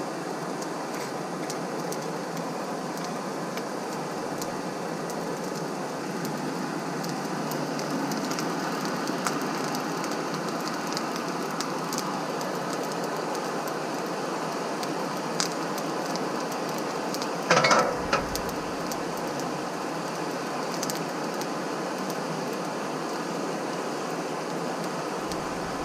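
Coal forge fire burning under forced air: a steady rush of blown air with the coals crackling and ticking, and a brief louder rattle about two-thirds of the way through.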